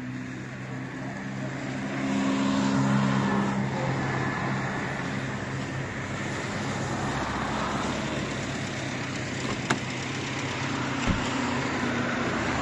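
Road traffic: a motor vehicle's engine running close by, growing louder about two seconds in, with two short sharp knocks near the end.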